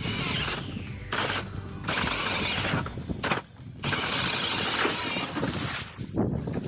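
Ice auger grinding down through ice in several bouts with short pauses between, boring a test hole that shows the ice is only about two inches thick.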